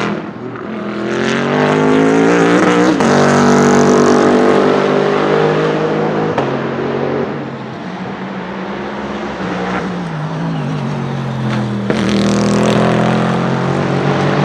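Bentley Continental GT3 race car's 4.0-litre twin-turbo V8 accelerating hard past, climbing in pitch and shifting gear about three seconds in. It fades somewhat mid-way, then swells again and is loud near the end as the car comes by on another part of the track.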